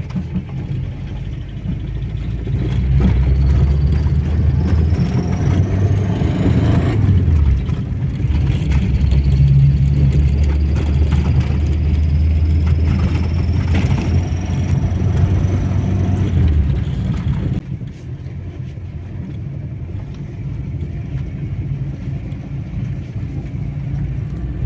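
VAZ-2101 'Kopeyka' engine running while not yet warmed up. Its note rises and gets louder about three seconds in, holds there, and drops back to a lower, steady run about two-thirds of the way through.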